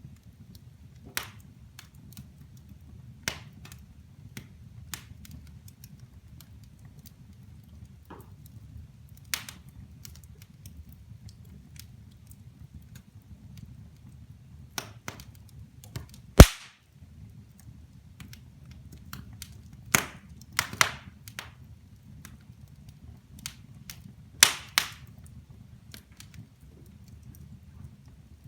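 Wood fire burning in a fireplace: scattered crackles and sharp pops over a low steady rumble. The loudest pop comes just past halfway, with small clusters of pops later on.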